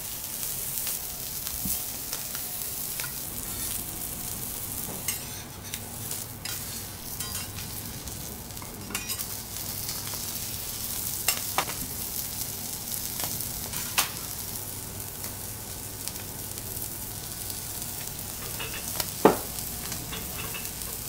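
Scallops and a thick onion slice sizzling on a steel teppanyaki griddle, the sizzle rising sharply right at the start. Metal knife, fork and spatula click and scrape on the plate now and then, with the loudest clack near the end.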